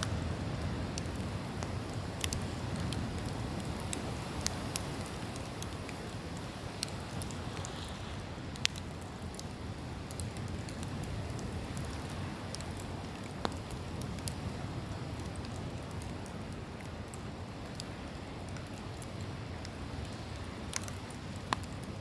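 Wood campfire crackling, with sharp pops and snaps every few seconds over a steady low rush of ocean surf.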